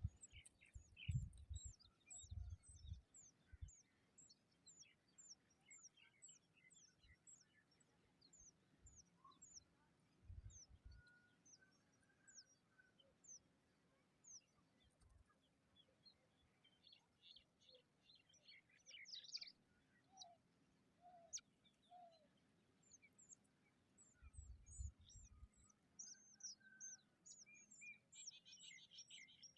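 Faint bird chirping: a long run of short, high, downward chirps repeated over and over, with scattered lower calls between them. A few low thumps are heard near the start and twice more later.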